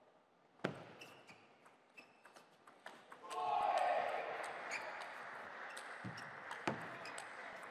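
Table tennis rally: sharp clicks of the plastic ball off the paddles and the table, scattered through, with one louder knock near the end. A louder, noisier stretch rises about three seconds in and stays under the clicks.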